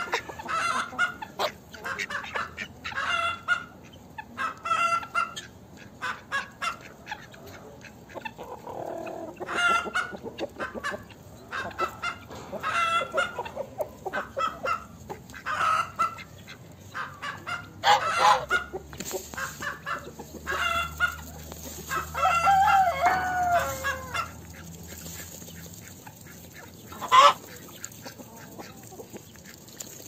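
Domestic hens clucking over and over, short calls coming in quick runs. About three-quarters of the way through there is a longer call that falls in pitch, and near the end a single sharp click, the loudest sound.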